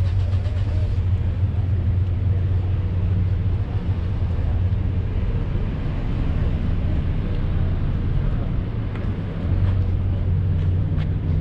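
A steady low engine hum, like a vehicle idling, with faint voices in the background.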